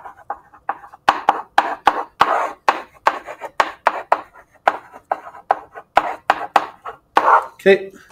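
A stylus writing on a tablet or touchscreen surface: quick, irregular taps and short scratches, about three or four a second, as handwriting is drawn stroke by stroke.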